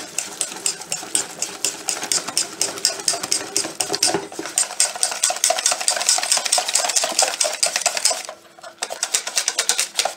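Wire whisk beating a thick mixture of yogurt, egg yolks and flour in a stainless steel bowl, its tines scraping and clicking against the steel in rapid, even strokes. There is a brief pause about eight seconds in, then the whisking carries on.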